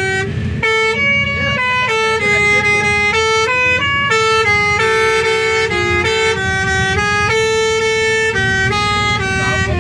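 Indonesian 'telolet' bus horn playing a tune: loud held horn notes that step up and down in pitch about every half second, with a low rumble underneath.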